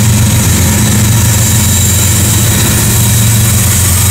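Norfolk Southern diesel freight locomotives passing close, their engines running with a steady low drone and a faint high whine.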